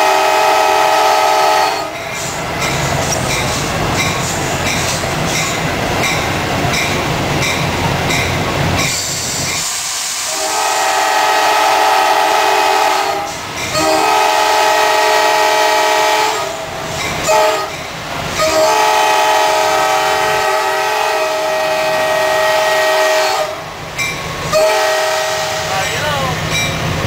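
Nathan K5LA five-chime air horn on an EMD FL9 diesel locomotive, heard from inside the cab, blowing for grade crossings: one long blast ending about two seconds in, then from about ten seconds a run of long blasts with a short one. Between blasts the locomotive's running noise and its wheels clattering over the rail joints carry on.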